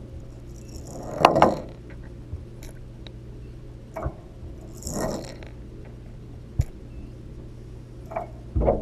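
Fishing lure splashing and being jerked through tub water, heard through a GoPro's underwater housing: muffled sloshing swells about a second in and about five seconds in, a few sharp knocks, and a steady low hum underneath.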